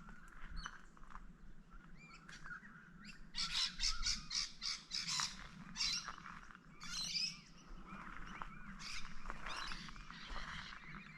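Wild birds calling in the bush, with a loud run of quick, rapid chirps a few seconds in and more bursts of calls later.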